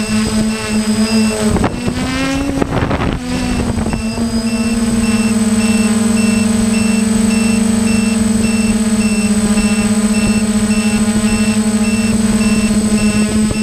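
A hexacopter drone's electric motors and propellers running with a steady hum, picked up by the camera on board. The pitch wavers and shifts between about two and three and a half seconds in, then holds steady.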